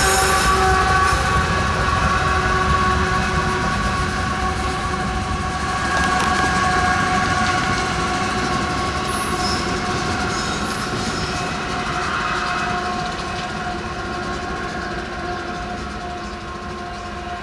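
Freight train of hopper cars rolling away on the rails behind BNSF GE diesel locomotives, a steady rumble with several high steady tones ringing over it. It fades gradually as the train recedes.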